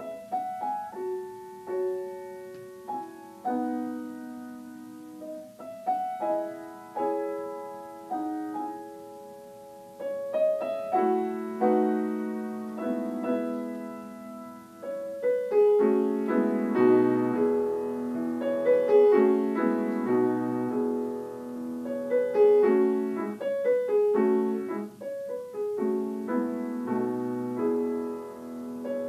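Solo piano played live: a slow, sparse phrase of single notes that about ten seconds in grows into a fuller, louder passage, with deep bass notes joining in over the second half.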